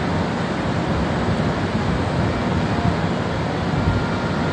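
Steady low rumble and hum of a KTM Komuter Class 92 electric train standing at the platform with its doors open.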